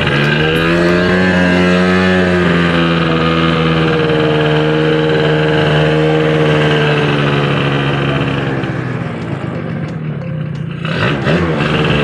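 Yamaha Jog ZR Evolution scooter's two-stroke engine, heard from the rider's seat, picking up revs as it pulls away over the first couple of seconds and then running steadily. About three quarters of the way through, the pitch drops and the engine note fades as the throttle is eased, leaving a rougher rushing noise.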